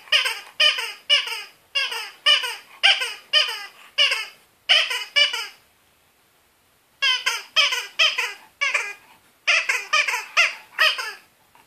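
Rubber spider squeaky toy squeaking over and over as a French bulldog chews it, about two squeaks a second. Each squeak falls in pitch, and there is a pause of about a second and a half midway.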